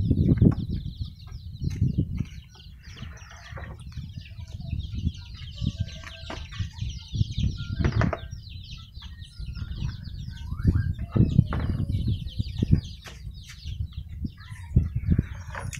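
Many birds chirping in quick, short, falling calls, with scattered knocks and thumps of plastic bowls and hands on a wooden slat table. Water splashes in a plastic basin at the very start.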